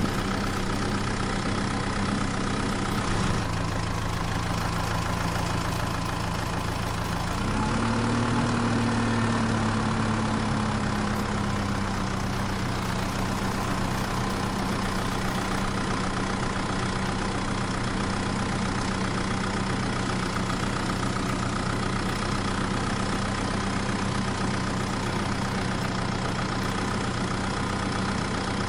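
An engine running steadily at idle. About seven seconds in it speeds up sharply, then eases back down to a steady idle.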